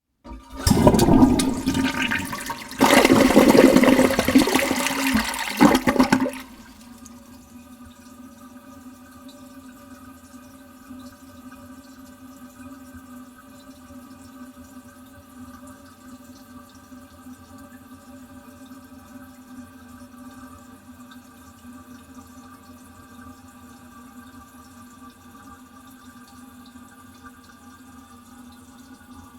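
Toilet flushed close up: a loud rush of water swirling down the bowl for about six seconds, surging louder partway through, then dropping suddenly to the quieter steady hiss of the cistern refilling, with a faint steady hum.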